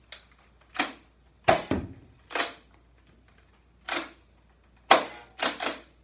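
Nerf Rival Takedown pump-action foam-ball blaster being pumped and fired repeatedly: a string of about eight sharp plastic clacks and pops, some in quick pairs.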